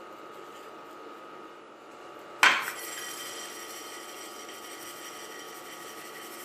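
Dishware set down with one sharp clink about two and a half seconds in, followed by a clear metallic ring that slowly fades; before it only faint kitchen handling sounds.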